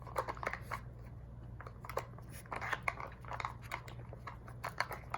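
Dogs crunching and chewing treats taken from a puzzle toy: irregular short crunches and clicks, over a steady low hum.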